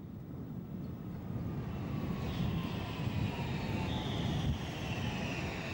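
Alstom Regio-Citadis tram-train passing close by on mainline track: its wheels rumble on the rails, growing louder, and a high whine slides slowly down in pitch as it goes by.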